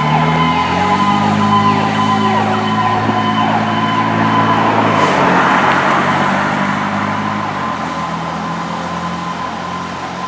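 Emergency vehicle siren sounding over a heavy truck engine as the vehicle drives past. The engine note steps down in pitch twice, and the sound fades as it moves away.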